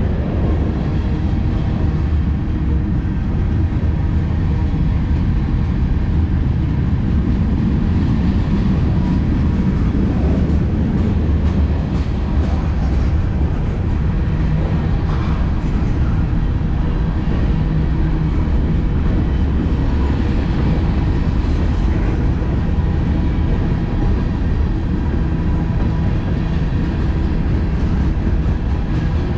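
Freight cars of a mixed manifest train rolling past at steady speed, a continuous low rumble of wheels on rail with light clicks.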